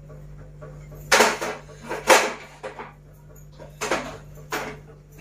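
Four sharp knocks and rubbing clatters of handling noise on a handheld phone's microphone. There are two close together, then two more about two seconds later.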